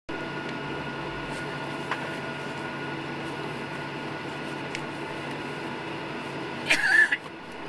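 Cabin noise inside a Boeing 737-800 taxiing onto the runway: its CFM56-7B engines run steadily at taxi power, a constant hum with a steady high whine. Near the end a brief, loud vocal sound from someone in the cabin cuts in.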